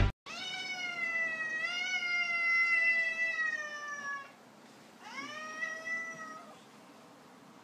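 Domestic cat giving a long drawn-out meow of about four seconds that rises at the start and falls away at the end, then a second, shorter meow about a second later.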